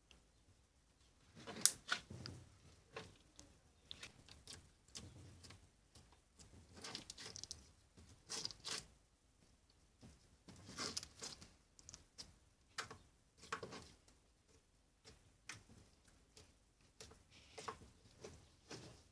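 Slime being squeezed and stretched by hand, giving irregular bursts of crackly clicks and pops with short quiet gaps, the sharpest click about a second and a half in.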